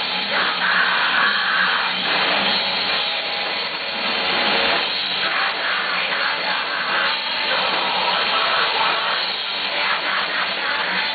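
Live rock band playing loudly: electric guitars, bass and drums in a dense, steady wall of sound, with a singer's vocals over it.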